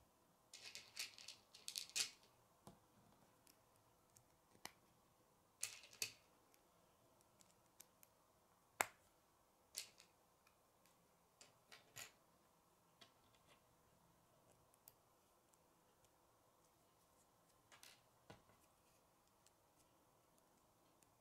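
Faint, scattered clicks and short rattles of small plastic K'nex pieces being handled and snapped together, busiest in the first couple of seconds, with the sharpest click about nine seconds in.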